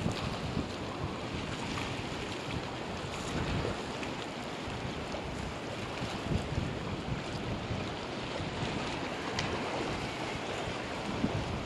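Ocean waves washing against the pier pilings below, with wind gusting on the microphone.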